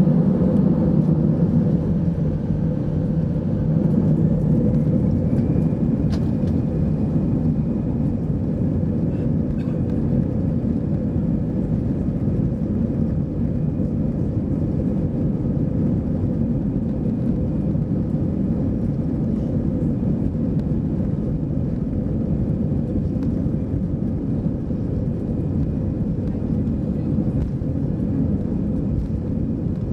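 An Airbus A320-214's CFM56-5B turbofans at takeoff thrust during the takeoff roll, heard in the cabin over the wing: a steady heavy rumble of engines and runway. A fan whine rises in pitch a few seconds in as the engines spool up, then holds steady.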